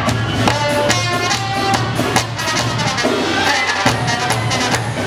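Tamborazo-style brass band music: horns carrying the melody over a steady drum beat of about two to three strokes a second.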